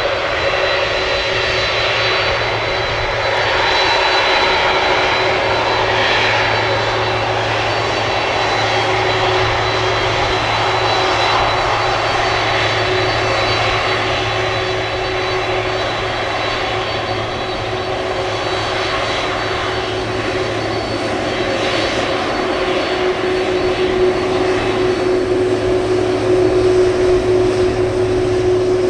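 Airliner jet engines running close by: a steady roar with a constant whine through it, growing slightly louder near the end.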